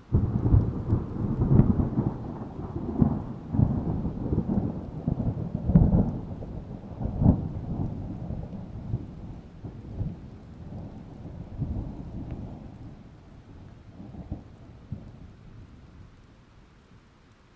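A peal of thunder. It breaks suddenly, rolls with a string of loud cracks through the first eight seconds or so, then rumbles away and fades out over about sixteen seconds.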